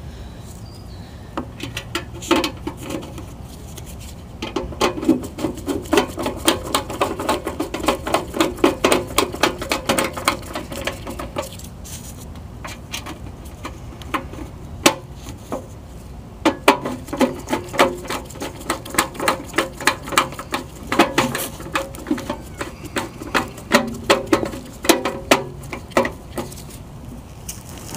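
Screws being driven into the sheet-metal housing of an air-handler blower with a hand screwdriver. The clicking is rapid and uneven and comes in two long runs: from about four seconds in to about eleven seconds, and again from about sixteen to twenty-six seconds.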